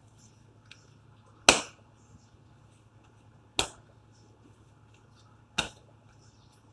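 Ball of bread dough thumped down on a countertop while being kneaded by hand, three sharp thumps about two seconds apart. A faint low hum runs underneath.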